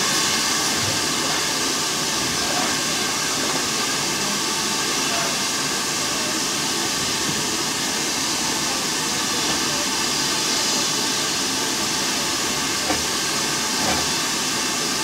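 British Railways Standard 9F steam locomotive at a standstill, hissing steam steadily. There are two light knocks near the end.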